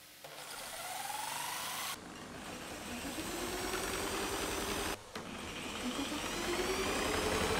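Electric angle grinder driving a homemade wooden scroll saw, its motor whine rising in pitch as it speeds up. The sound cuts off abruptly about two seconds in and again about five seconds in, each time coming back with another rising whine.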